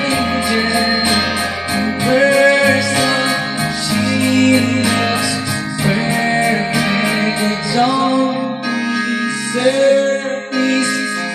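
A young man singing through a handheld microphone over a backing track with guitar and a steady beat. The beat drops out about eight seconds in, leaving voice and guitar.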